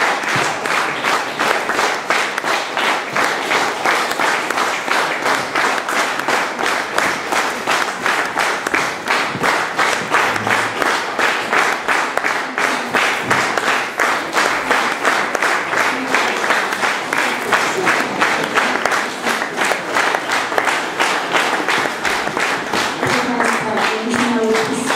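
Audience applauding in rhythmic unison, about three claps a second. A few voices rise near the end.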